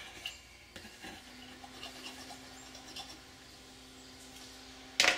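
Knife scraping and cutting through biscuit dough along the rim of a ceramic casserole dish, in soft, scattered strokes. A faint steady hum comes in about a second in, and a single sharp knock near the end is the loudest sound.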